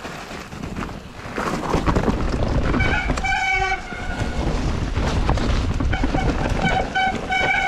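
Mountain bike descending a wet trail: tyres and frame rattling over rough ground. Disc brakes squeal with a horn-like tone about three seconds in, then give short repeated squeals near the end as they are pulsed on and off, typical of wet brake rotors and pads.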